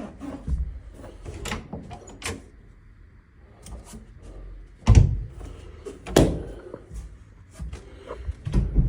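A series of irregular knocks and thumps, the loudest two about five and six seconds in and another near the end.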